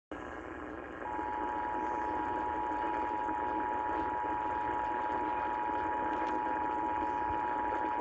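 Emergency Alert System two-tone attention signal, two steady tones sounding together, played through an AM radio's speaker over AM static hiss. The tone starts about a second in and marks the start of a required monthly EAS test.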